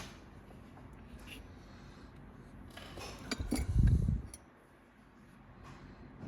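Small clicks and clinks of tools and hard parts being handled on a work surface, with a louder cluster of knocks and a dull thump between about three and four seconds in.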